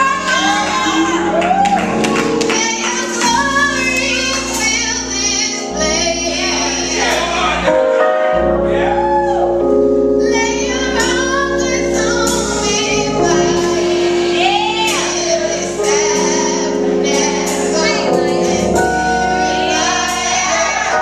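Youth gospel choir singing, backed by a drum kit with cymbals and long held instrumental chords.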